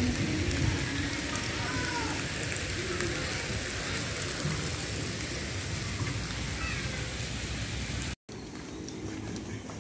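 Steady rush of flowing water, an even hiss with no rhythm. It cuts off abruptly a little past eight seconds, leaving a quieter outdoor background.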